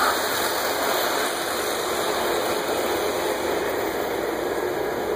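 Several model trains running on a layout's tracks, a steady rolling noise with no breaks.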